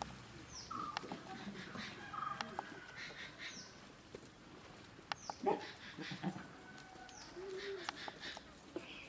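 Small birds chirping over and over, short high calls that fall in pitch, with scattered sharp clicks and knocks and a short low animal call near the end.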